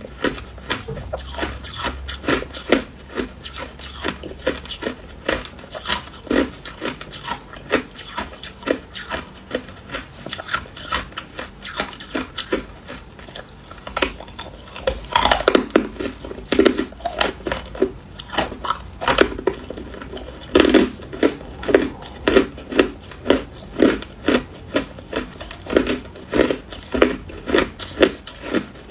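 Ice being bitten and chewed close to a lapel microphone: a run of sharp crunches that grows louder and settles into a steady chewing rhythm of about two crunches a second partway through.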